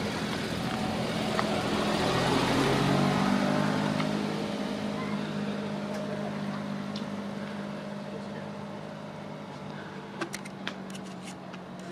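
A motor vehicle passing on the street: its engine and road noise swell to a peak about three seconds in and fade away, with a steady engine hum lingering. A few sharp clicks near the end.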